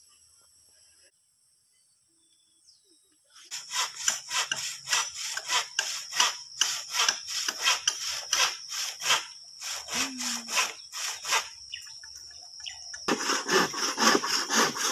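Handsaw cutting through a bamboo pole in back-and-forth strokes, about two or three a second. It starts a few seconds in and gets faster and louder near the end.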